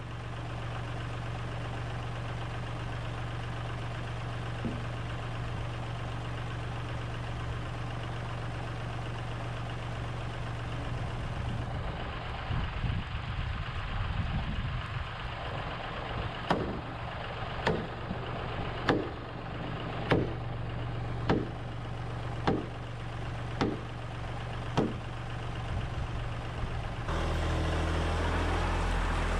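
Steady engine-like hum, joined about halfway through by a run of eight sharp, evenly spaced strikes, roughly one a second, typical of a hand tool striking timber in timber-frame joinery work.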